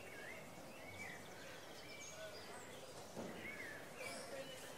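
Daytime town-square ambience soundscape: small birds chirping over a faint murmur of distant voices, with a soft knock about three seconds in.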